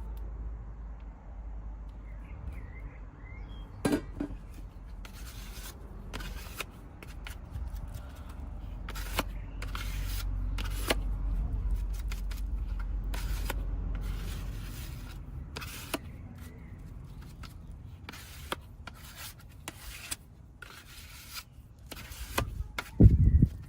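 Irregular scraping and rubbing strokes of hand tools on the van's body panels over a low rumble. A loud thud comes just before the end.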